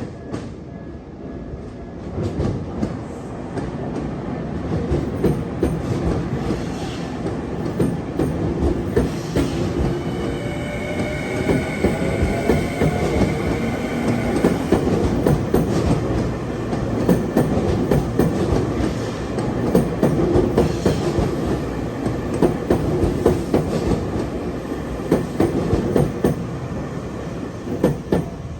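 Tokyu electric train passing over a level crossing, its wheels clattering steadily over the rail joints, with a high wheel squeal held for several seconds about a third of the way through.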